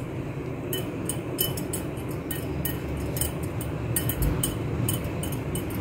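Light clicks and scrapes of a steel spoon against a china bowl as soft stuffing is scooped out and pressed into place, over a low steady hum.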